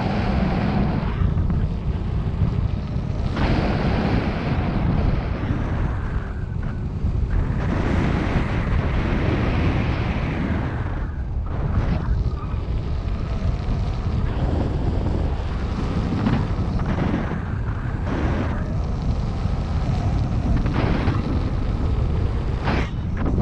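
Wind buffeting the microphone: a loud rush of moving air that swells and eases every few seconds, with most of its weight in the low range.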